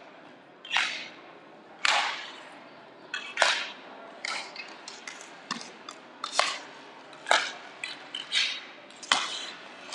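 Sharp clacks from inline hockey play, about one a second and unevenly spaced: sticks and puck striking the sport-court floor and boards, over a low rink hiss.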